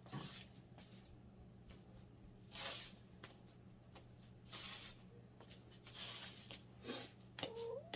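Plastic sheeting rustling in short, scattered bursts as it is smoothed out by hand on the floor, over a steady low hum.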